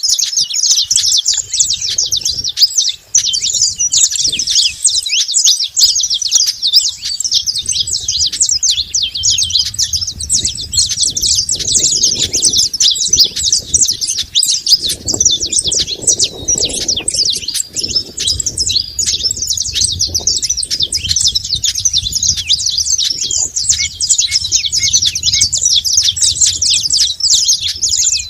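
Saffron finches chirping without pause, a dense stream of quick, overlapping high chirps.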